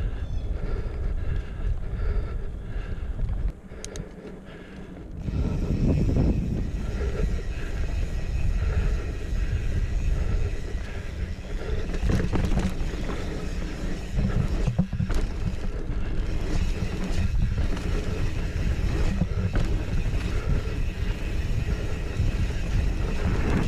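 Wind rushing over the camera microphone and knobby tyres rolling over a dirt trail as a 2016 Specialized Stumpjumper Comp 6Fattie mountain bike is ridden, with a few sharp knocks from the bike over bumps. It drops quieter for about a second and a half around four seconds in.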